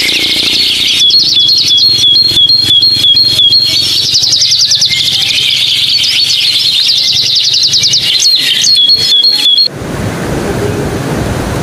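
Loud, rapid high-pitched chirping calls repeating several times a second, with quick rising sweeps. Near the end the chirping cuts off abruptly and a steady rushing noise takes over.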